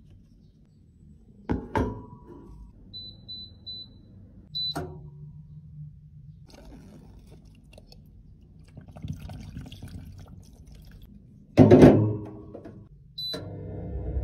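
Handling and washing sounds. Two sharp clinks come first, then several short high electronic beeps, faint running water, and a loud thunk with a brief ring. Near the end one more beep is followed by a rising rush of water noise as a dishwasher starts.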